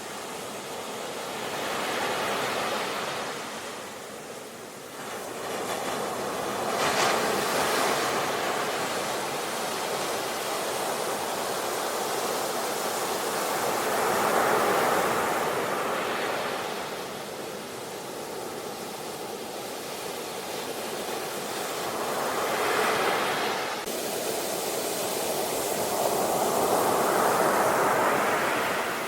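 Ocean waves crashing on the shore, the surf swelling and receding in repeated surges every few seconds.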